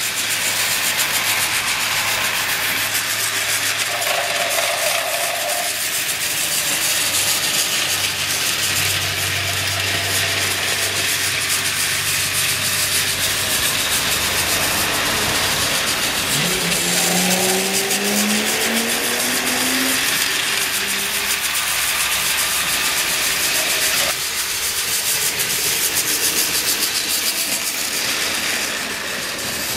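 Battery-powered Tomy Trackmaster toy trains running on plastic track: a steady whirring of small electric motors and gears with wheel rumble, one whine climbing in pitch for a few seconds past the middle.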